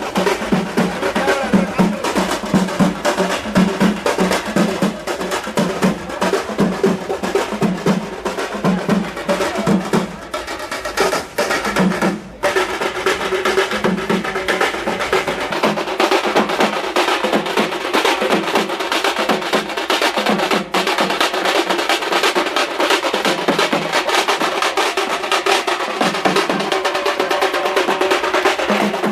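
Festival drum music: loud, dense drumming with a steady repeating beat, dipping briefly about ten to twelve seconds in.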